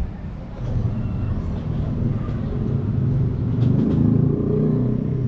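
A motor vehicle engine running close by, a low rumble that grows louder about a second in and stays loud.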